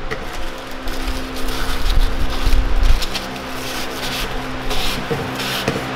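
Hand sanding the outside end of a PVC pipe with sandpaper: scratchy back-and-forth strokes, about two a second in the second half.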